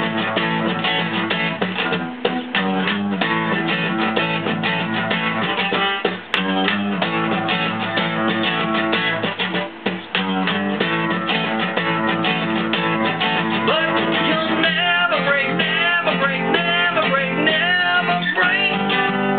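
Acoustic guitar strummed in a steady rhythm, playing the chords of a rock song.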